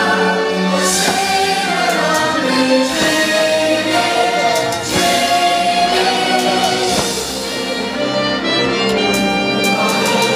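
Fireworks show soundtrack of orchestral music with a choir singing held notes, with a few firework bangs in the mix.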